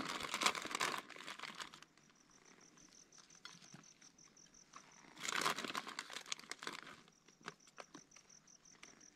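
Plastic bag of salad leaves crinkling and rustling as leaves are pulled out and laid on burgers, in two bouts: one at the start lasting under two seconds and another about five seconds in, with light crackles between.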